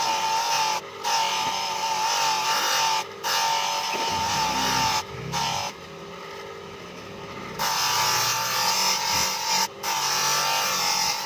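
Steel knife blade being ground on a motor-driven abrasive wheel: a loud grinding with a wavering whine, broken by short gaps each time the blade is lifted off. About halfway through, the grinding stops for about two seconds, leaving only the quieter hum of the spinning wheel, then starts again.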